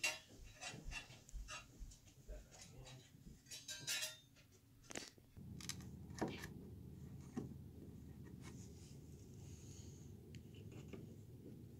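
Light clicks and taps of a thin wooden window sill cover being handled and fitted, and its finish nails tapped in with the head of end-cutting nippers. The taps come thick in the first few seconds, then only a few sharp ones over a steady low hum.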